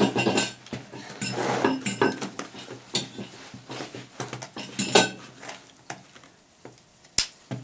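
Clinks, clicks and knocks of an AR-15 rifle being handled and settled onto a padded rest bag on a bench. The sharpest cracks come at the start and about five seconds in.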